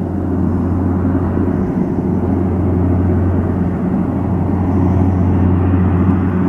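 Canadair amphibious water bomber's twin engines and propellers running at power while its hull skims the lake scooping water: a steady loud drone mixed with the rush of spray, growing slightly louder as the aircraft approaches.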